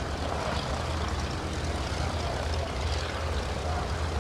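Le Rhône rotary engine of a Bristol M1C replica monoplane running steadily as the aircraft flies past.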